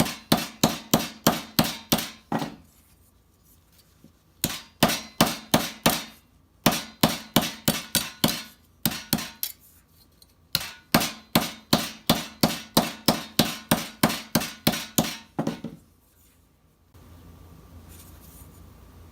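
Hand hammer striking a steel armour plate of an armet helmet, flaring out its edges: quick, even blows about four a second in several runs with short pauses. The hammering stops near the end, leaving a faint steady hum.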